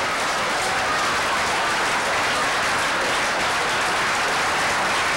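Audience applauding steadily after a joke's punchline.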